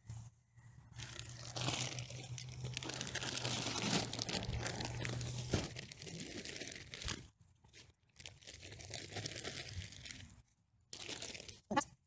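Crinkling and crunching of a plastic potting-soil bag and soil being handled around a pot, in two stretches with a short pause about seven seconds in.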